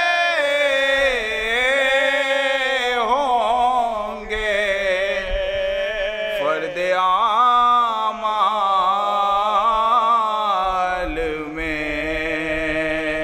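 Male voices chanting a salam in Urdu devotional style, without instruments, holding long notes ornamented with wavering turns. About eleven seconds in they settle onto a lower held note.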